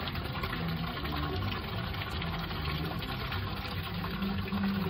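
Thin stream of water pouring steadily into a stone wishing well, splashing onto the water inside.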